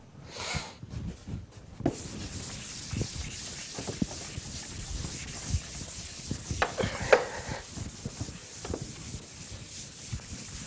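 Chalkboard being wiped clean: a steady rubbing hiss of the eraser across the board starts about two seconds in, with a few light knocks.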